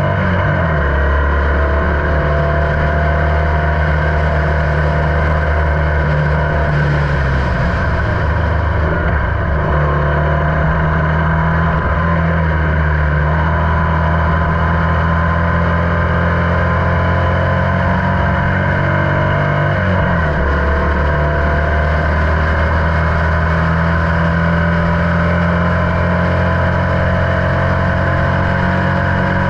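Onboard sound of a Formula Vee's air-cooled Volkswagen flat-four engine running hard at racing speed. Its pitch climbs slowly, with brief dips about a second in and about twenty seconds in.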